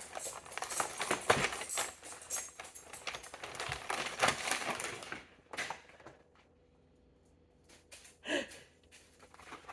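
Crinkling and rustling of gift packaging being handled, a dense run of small crackles that stops about halfway, followed by two brief rustles.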